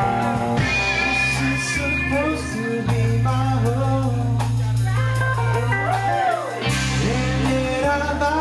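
A live rock band plays electric guitars, bass and drums, with a man singing.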